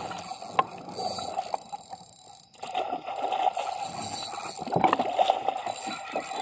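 Water lapping and slapping against a kayak's hull, with scattered light knocks and a short quieter spell about two seconds in.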